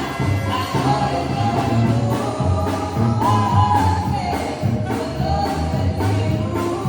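Mexican banda music with singing: a melody over a pulsing low bass and a steady drum beat.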